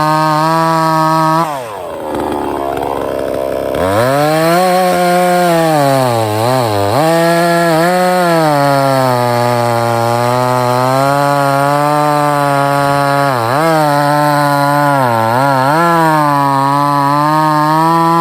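Sungel 58 cc two-stroke chainsaw running at high revs while cutting wood. About a second and a half in the throttle drops back to a low idle, and near 4 s it revs up again. After that the pitch sags briefly several times as the chain bogs in the cut.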